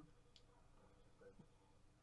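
Near silence: a faint steady hum with one faint tick.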